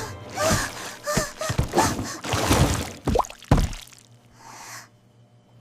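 Cartoon sound effects: a rapid string of gasps and short squeaky cries mixed with thuds, then a soft breathy whoosh near the end.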